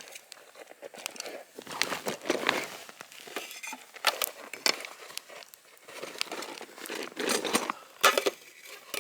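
A bag crinkling and rustling as it is handled, in irregular bursts with scattered sharp clicks.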